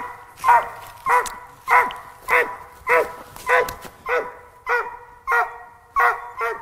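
Squirrel dog barking treed at the base of a tree: short, evenly spaced barks, each rising then falling in pitch, about a dozen at just under two a second. The steady tree barking is the dog's sign that it has a squirrel up the tree.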